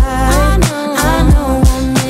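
Background music with a beat of deep bass drum hits and a melody over it, in a rhythm-and-blues style.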